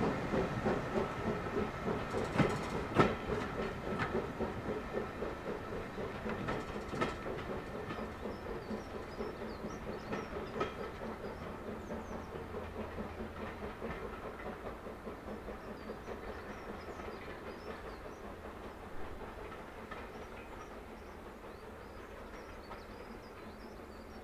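Steam-hauled passenger train behind BR Standard Class 9F 92214 running away: a steady rhythmic beat and coach wheels clicking over rail joints, with a few sharper clicks in the first half, all fading steadily as the train recedes.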